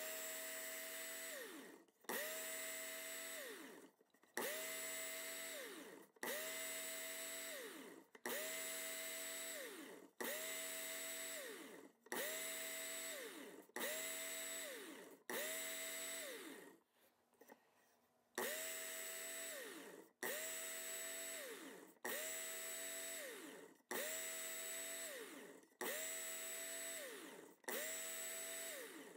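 Work Sharp Ken Onion Edition electric belt sharpener run in short bursts, about fifteen passes roughly two seconds apart with a longer pause a little past halfway, as a knife blade is drawn across the abrasive belt. Each burst starts suddenly with a motor whine and the hiss of the belt on the blade, and the whine drops in pitch as the trigger is let go and the motor spins down.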